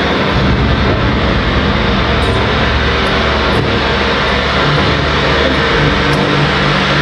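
Loud live electronic music: a dense wall of hiss-like noise over shifting low droning tones, steady throughout, played through a venue sound system.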